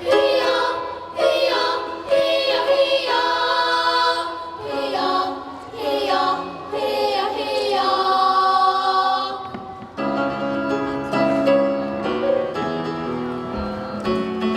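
A vocal ensemble singing a song in harmony, in short phrases. About ten seconds in, the sound changes to lower, steadier held notes.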